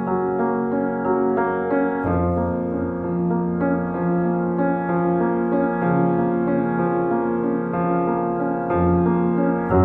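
Background music: piano playing slow, sustained chords, changing chord about two seconds in and again near the end.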